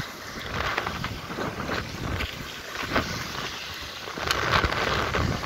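Wind rumbling on a phone's microphone, with light surf washing at the shore and small knocks from the phone being handled. The rumble grows louder about four seconds in.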